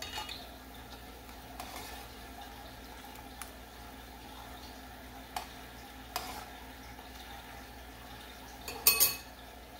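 Palm sugar syrup bubbling as it cooks down to caramel in a pot, with a metal spoon stirring it and clinking against the pot now and then; the loudest clinks come about nine seconds in.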